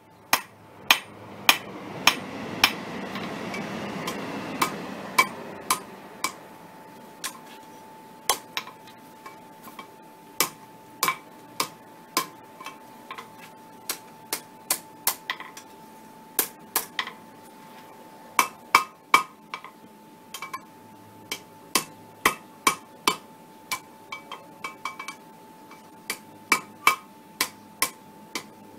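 Hand hammer striking a hot mild-steel chain link on an anvil: sharp, ringing metal-on-metal blows in irregular runs of one to three a second, as the link is shaped on the anvil face and then over the horn.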